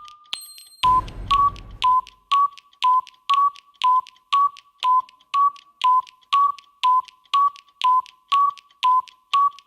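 Countdown timer's ticking sound effect: short pitched ticks, about two a second, alternating between two slightly different pitches like a tick-tock. It starts about a second in, just after a brief high ding.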